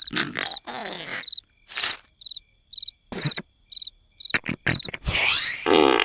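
Cartoon night ambience: cricket chirps repeating about twice a second, broken by a run of short cartoon snore sounds, the longest and loudest near the end.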